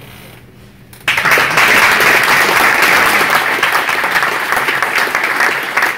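Audience applauding, the clapping starting suddenly about a second in and continuing without a break.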